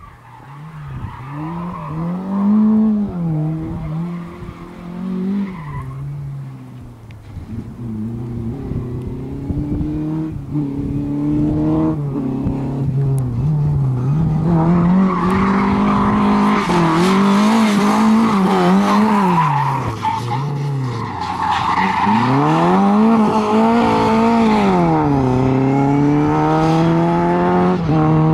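Lada 2107 rally car's four-cylinder engine revving up and dropping back again and again as it is driven hard through turns, louder from about halfway as it comes close, with tyres squealing in the corners.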